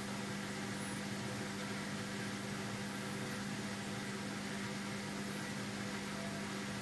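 Hoover washing machine on its final spin at 500 rpm: a steady motor hum with one strong low tone and an even hiss, holding level without change.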